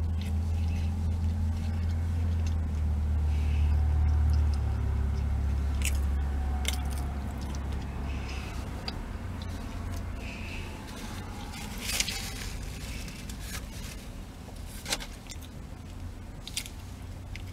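Close-miked chewing of a bacon burger: wet, squishy mouth sounds with a few sharp smacks and clicks scattered through. A low steady hum runs underneath and fades about halfway.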